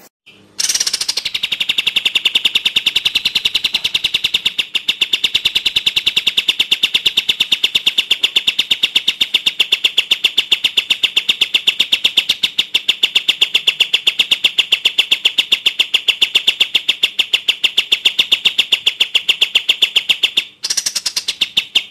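Cililin (crested jay) giving a long, fast, even rattle of high repeated notes, breaking off briefly near the end and starting again.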